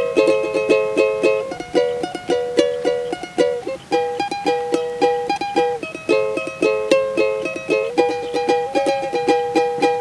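Small acoustic string instrument strummed in a quick, even rhythm, with the chord changing every couple of seconds. It is the instrumental break between sung lines of a campursari song, with no voice.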